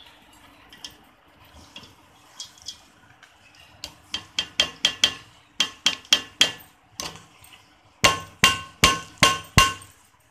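A metal serving spoon or ladle knocked against the rim of an aluminium cooking pot, knocking off rice as it is layered over the chicken masala for biryani. The sharp, ringing taps come in quick runs of several a second, the loudest run of five near the end.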